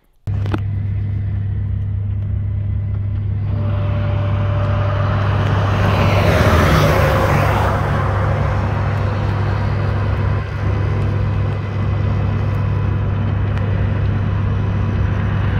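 A large vehicle's engine running with a steady low rumble, cutting in abruptly about a quarter second in. A rushing hiss swells over the middle stretch and then fades.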